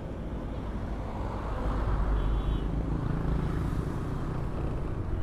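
Honda Vario 125 FI scooter's single-cylinder engine running as it rides along a street, with steady road and wind noise. The sound gets somewhat louder about two seconds in.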